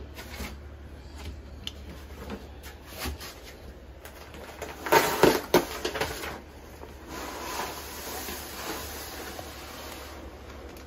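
Paper-faced fiberglass insulation batt being cut and handled: a burst of loud tearing and crinkling about five seconds in as the knife goes through the paper facing, then a softer rustle as the batt is lifted and pressed into the wall cavity.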